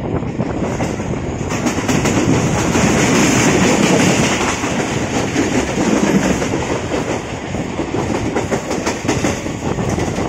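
A passenger train running through the rail yard, heard from on board: steady rumble of the coach wheels on the track with rapid clickety-clack over rail joints and points, louder from about two seconds in.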